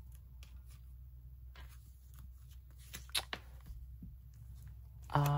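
Photocards and plastic sleeves handled by hand: soft rustling and light clicks, with one sharper click a little after three seconds in. A hummed voice sound starts just before the end.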